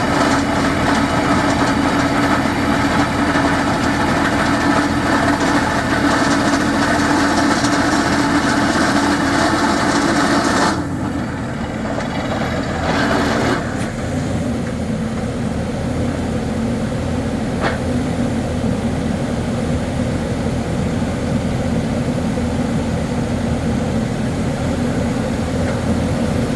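Engine-driven rock-drilling machinery running steadily. About eleven seconds in the sound drops and turns duller, with a brief louder surge a couple of seconds later, then it carries on at a lower, steady run.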